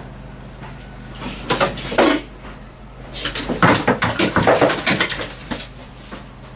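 Young carrion crow giving harsh, rough calls: a short burst about a second and a half in, then a longer run of calls from about three seconds to near the end. Rustling of clothing against the camera mixes in.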